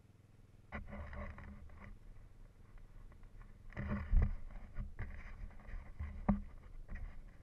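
Muffled rumbling and rattling from an ATV jolting over rough trail, with two sharp knocks about four and six seconds in.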